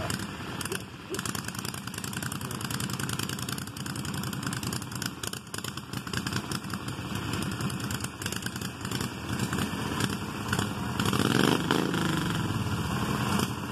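Small garden tractor engines running, one of them revving up harder about three-quarters of the way through.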